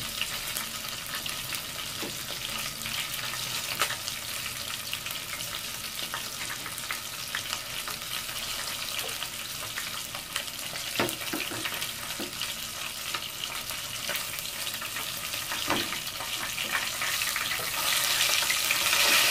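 Chicken pieces deep-frying in oil in a metal pot: a steady sizzle with scattered pops and crackles. Near the end, tongs turn the pieces and the sizzle grows louder.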